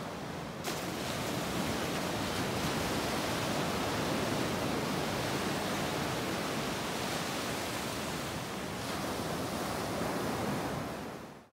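Ocean surf: small waves breaking and washing up a sandy beach, a steady rushing wash that cuts off abruptly near the end.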